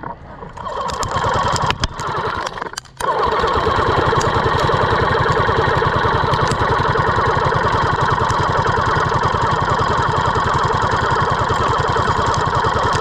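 Classic Army M134-A2 airsoft minigun firing: its electric motor whines and the rotating barrels let off a rapid, steady stream of shots. A short burst comes first, then a brief stop at about three seconds, then one long continuous burst.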